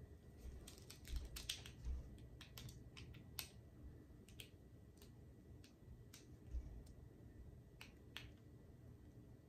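Faint, irregular clicks and a few soft low thumps from a stretched painting canvas being tilted and handled with gloved hands.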